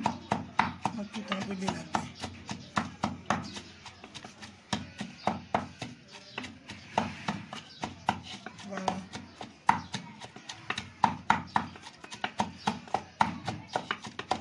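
Wooden pestle pounding leafy greens in a clay mortar, a steady run of dull knocks about two a second.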